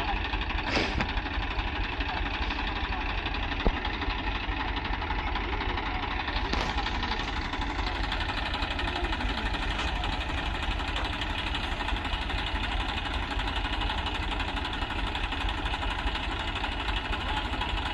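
Diesel tractor engine running steadily at an even speed, with one sharp click about four seconds in.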